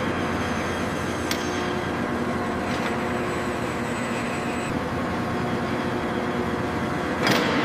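Steady workshop machinery noise with several constant humming tones, broken by sharp metallic knocks about a second in, around three seconds in, and a louder one near the end.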